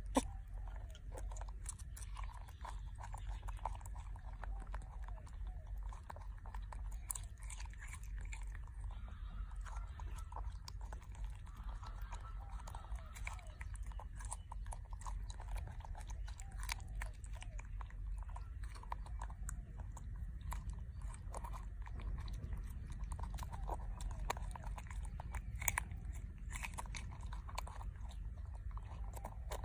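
A young macaque chewing and biting peeled juicy fruit, with irregular small wet clicks and smacks of its mouth over a steady low hum.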